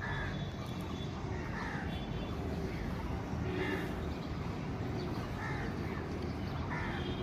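Short animal calls repeated about once a second, over a steady low rumble.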